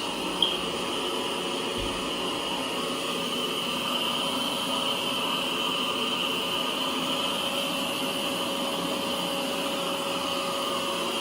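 Lefant M3 robot vacuum running steadily on a cleaning pass: a constant hiss of its suction with a faint steady hum. A brief high click sounds about half a second in.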